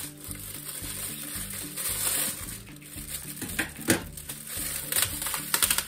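Kitchen shears cutting through a ham's crinkly plastic wrapping: the plastic rustles and crackles, with sharp snips, the loudest about four seconds in and a quick run of them near the end. Soft background music plays underneath.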